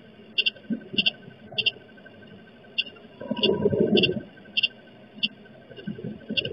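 Short, sharp high chirps repeating at a steady pace, a little under two a second, over a faint, steady, pulsing high trill. A brief low rustle comes in about halfway through.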